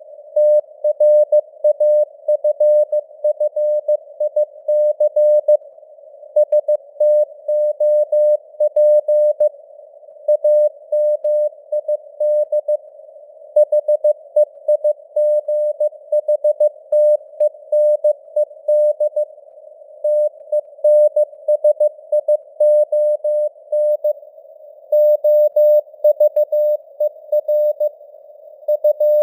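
Morse code (CW) sent at 15 words per minute: a single steady beep keyed on and off in dots and dashes, over a faint band of simulated radio hiss around the tone.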